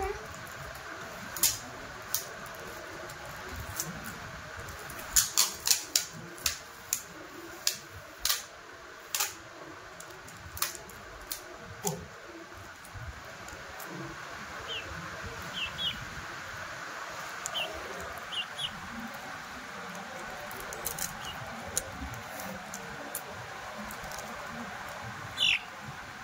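Sharp clicks and taps from thin wooden splint sticks being handled against a chick's leg, thickest in the first half. A few faint high cheeps from the chick in the middle, and a louder cheep near the end.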